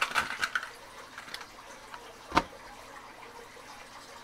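Small plastic tool packaging handled by hand: a quick run of clicks and rattles at the start, then a single sharp knock about two and a half seconds in.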